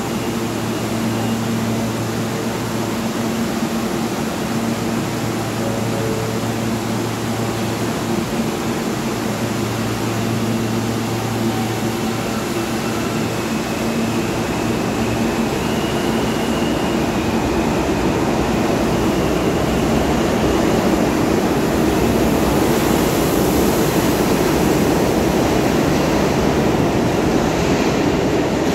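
Underground subway station with a steady electrical hum from a train's equipment for about the first fifteen seconds, then the rumble of an approaching subway train building louder over the last ten seconds.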